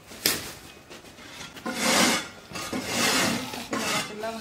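Dry twigs and kindling scraping and rustling against a clay chulha as the firebox is loaded. There is a sharp knock just after the start and two longer, louder rasping rubs in the middle.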